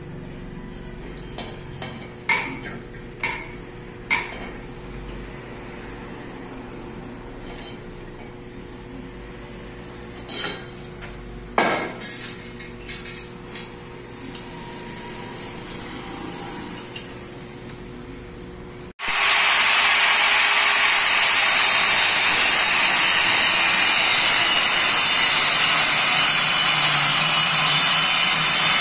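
A few sharp metal clinks and knocks of hand tools on a motorcycle exhaust being removed. About two-thirds through, it cuts to an angle grinder grinding metal, loud and steady to the end.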